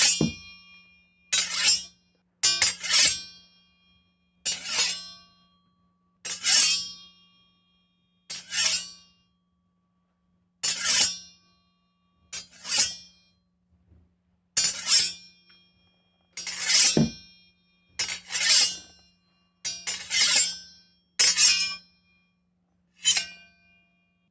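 Sword-drawing sound effect, a metallic 'shing' with a high ringing tail, repeated about fifteen times, one every one to two seconds.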